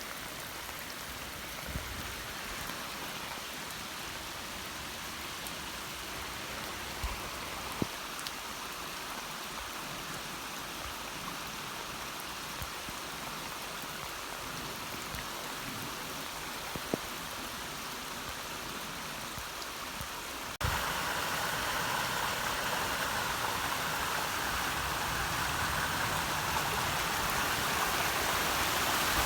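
Steady rush of floodwater pouring from a dam's overflow pipe, mixed with falling rain and a few light ticks. About two-thirds of the way through it cuts suddenly to a louder, closer rush of water.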